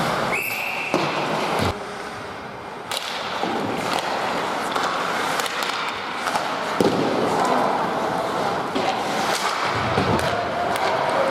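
Ice hockey play in a rink: a referee's whistle blows briefly just after the start, then sticks and puck clack, skates scrape and there are thuds against the boards, with voices calling out later on.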